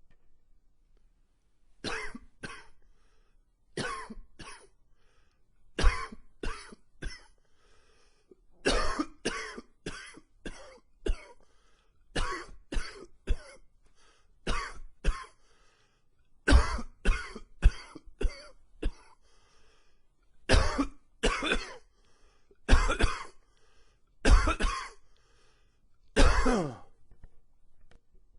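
A man coughing in repeated fits: clusters of one to five harsh coughs every second or two, with brief pauses between, set off by seasonal allergies.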